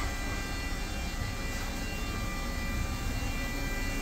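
Haas VF-4SS vertical machining center running, with flood coolant spraying around its spindle: a steady whine of several high tones over a constant low hum and hiss.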